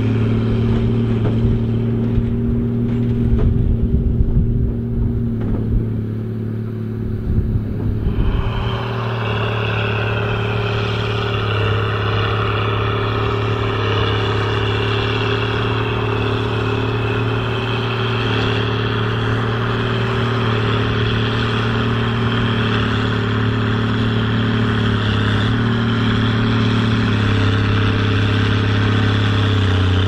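Case 2294 tractor's diesel engine working steadily under load while pulling a Hesston 4900 large square baler through straw, the baler's machinery running with it. About eight seconds in the sound changes to a steadier drone with a high whine over it.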